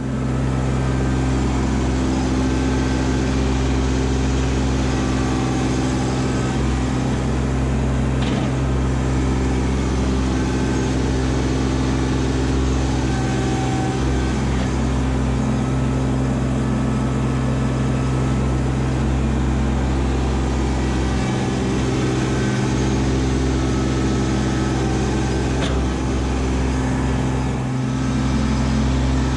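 Kubota LX2610 compact tractor's three-cylinder diesel engine running steadily at a constant speed.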